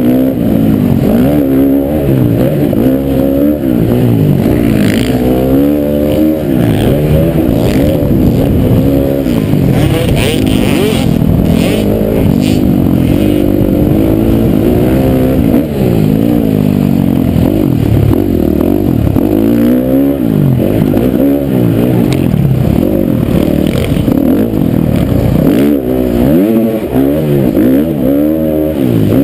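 Dirt bike engine revving hard and dropping off, over and over, as the rider accelerates and shifts through the gears, heard close up from the rider's own bike.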